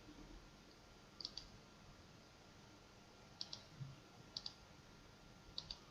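Computer mouse button clicking: four quick double clicks, a second or two apart, over faint room hiss.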